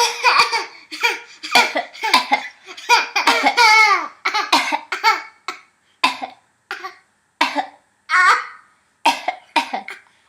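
A baby making pretend coughs, a long string of short coughs, one after another and bunched together at first, then spaced out, with laughter mixed in during the first few seconds.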